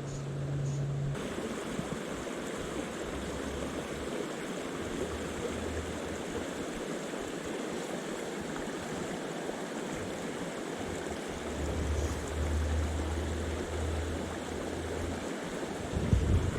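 Rushing water of a mountain trout stream, a steady hiss, with wind gusting on the microphone as low rumbles now and then. It starts after about a second of a steady low hum.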